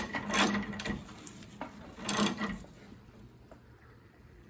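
Wrench ratcheting a threaded union onto the sway bar end-link rod, in two short bursts, the second about two seconds in, then quiet work.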